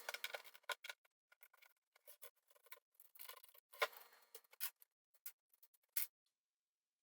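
LEGO bricks and plates clicking and rattling as they are pried apart and handled: a scatter of small plastic clicks, the sharpest near four seconds and again at six seconds.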